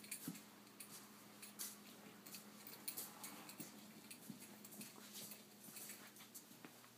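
Near silence with faint, scattered clicks and taps: a small dog's claws on the floor and the wire panels of an exercise pen.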